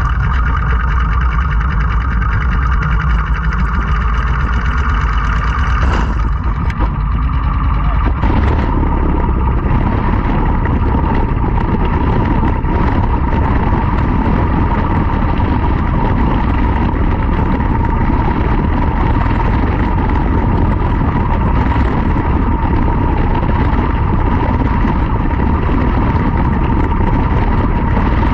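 Quarter midget race car's single-cylinder Briggs & Stratton Animal engine running loud and steady at racing speed, picked up on board. A steady high-pitched whine sets in about eight seconds in and holds.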